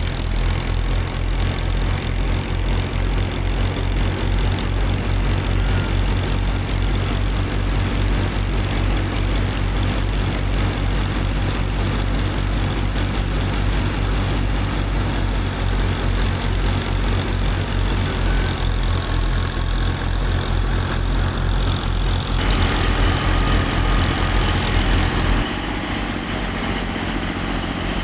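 Miniature wheat thresher running, driven by a small motor: a steady machine hum with a fast flutter. It turns brighter about three-quarters of the way through, and near the end the low hum drops away and it gets quieter.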